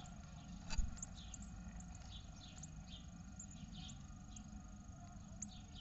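Great tit nestlings in the nest box giving short, falling, high-pitched chirps, about three a second. A single knock on the nest box about a second in as the parent bird leaves.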